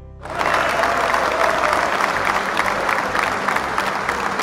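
Audience applauding: a crowd's clapping that starts suddenly a moment in and keeps up steadily.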